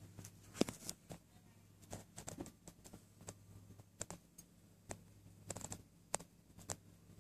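Irregular light clicks and taps, scattered through the whole stretch, over a faint steady low hum.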